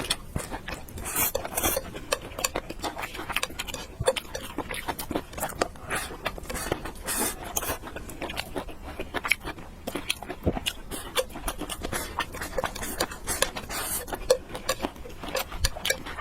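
Eating sounds: utensils clicking and tapping against a bowl and dishes in many small strokes, with some chewing.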